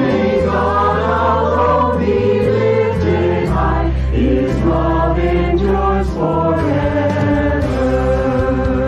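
Mixed choir singing a hymn in parts over sustained low accompaniment notes. The voices were recorded separately by singers at home and mixed into one virtual choir.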